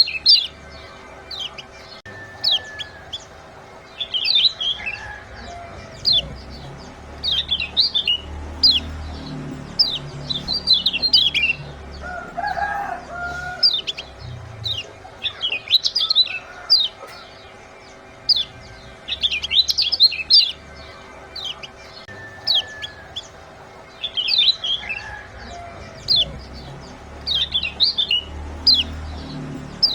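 Kecial kuning white-eyes giving quick clusters of sharp, high, downward-slurred 'ciak' chirps that repeat every second or two, with a brief lower call about halfway through. It is a lure recording played to set other caged birds singing, over a faint steady hum.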